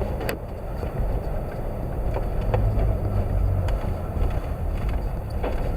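Car driving on snowy roads, heard from inside the cabin: a steady low rumble of engine and road noise, with a few light ticks.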